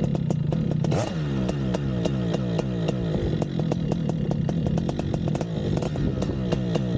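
Paramotor engine and propeller running steadily, with frequent sharp ticks throughout and a brief swell in pitch about a second in.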